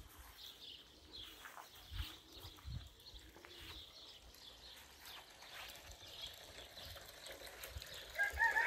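Faint small-bird chirping and soft footsteps outdoors; near the end a rooster starts crowing, one long held call.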